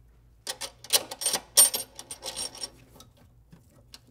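Stiff insulated wires of a power cable scraping and clicking against a metal cable clamp and the steel breaker-panel box as they are pushed in through a knockout. An irregular run of clicks and rustles starts about half a second in and dies away before three seconds.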